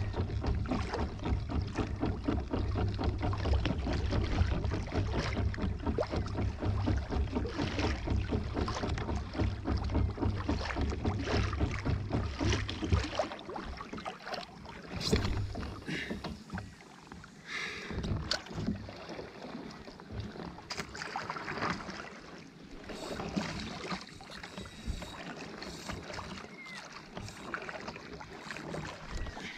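Water splashing and lapping against a fishing kayak's hull, with a low rumble under it that drops away about halfway through, leaving lighter splashes and occasional knocks.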